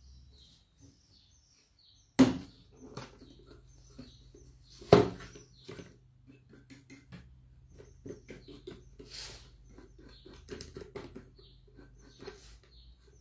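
A decorated box-shaped vase handled on a tabletop as it is turned around: two loud knocks about two and five seconds in, then a run of lighter taps and clicks.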